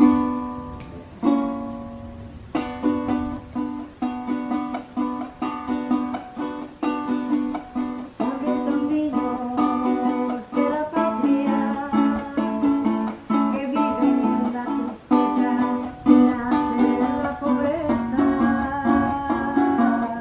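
A small acoustic string instrument strummed in B minor. One chord rings at the start, then after a short pause it settles into a steady strummed rhythm of chords.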